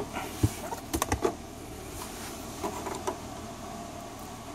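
Plastic clicks and knocks of a scan tool's connector being handled at the OBD-II diagnostic port under the dashboard, a handful in the first second and a half, then only a faint steady background.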